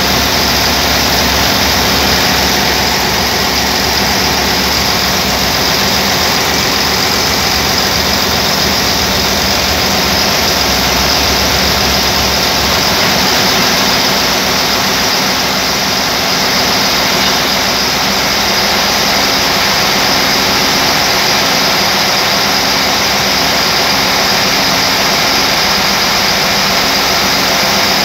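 MAN marine diesel engine running steadily at about 900 rpm, loud and unbroken, with a constant low hum under dense mechanical noise.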